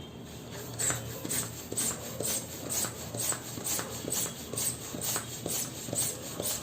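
Rubber balloons being handled and rubbed, giving short squeaks and rustles in quick repeated strokes, about two a second.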